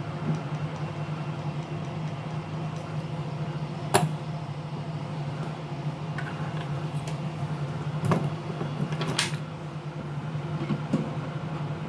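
A steady low hum throughout, with a few sharp clicks of tools and parts being handled during a tablet teardown: one loud click about four seconds in and two more near eight and nine seconds.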